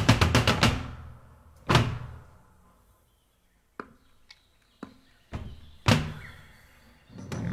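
Drums played live: a fast run of strikes ends about a second in, then single heavy drum hits are left to ring out, with a few light taps between them. Music comes in near the end.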